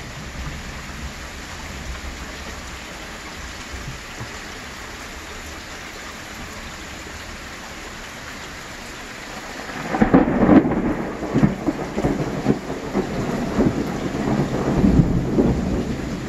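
Steady rain falling on pavement, then about ten seconds in a loud clap of thunder breaks in suddenly and keeps rolling in deep, uneven rumbles.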